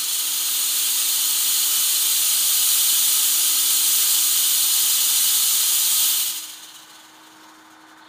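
Smoke machine blowing fog through an exhaust duct for a flow test: a loud steady hiss that cuts off about six seconds in.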